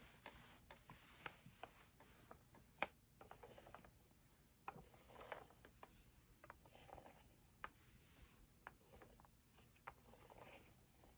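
Adhesive lint roller being rolled over a cat's fur: faint rustling, sticky rolling strokes of about half a second each, with scattered small clicks, the sharpest about three seconds in.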